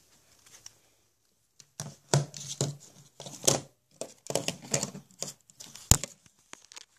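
Handling noise from a handheld camera being fumbled and moved about: irregular rustling and scraping, starting about two seconds in, with a sharp knock about six seconds in.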